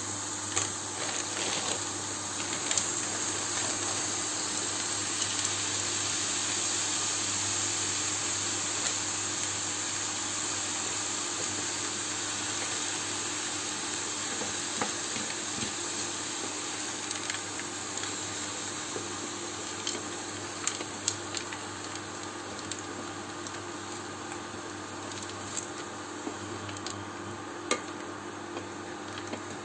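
Chicken pieces and mixed vegetables sizzling in a frying pan, the sizzle swelling over the first few seconds and then slowly easing. A wooden spatula stirs them, with scattered clicks against the pan in the second half.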